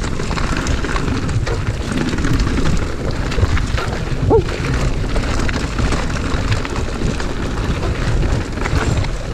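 Wind rushing over a chest-mounted action camera's microphone as a mountain bike descends a dirt singletrack fast, with steady tyre noise on the trail and scattered ticks and rattles from the bike.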